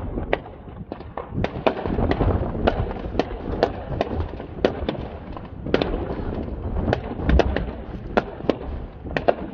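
Aerial fireworks bursting: many irregular sharp bangs and crackles, several a second, over a low rumble, with a heavier boom about seven seconds in.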